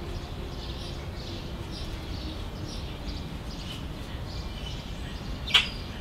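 House sparrows and house finches chirping now and then at a thistle feeder, with one much louder, sharp chirp near the end, over a steady low background rumble.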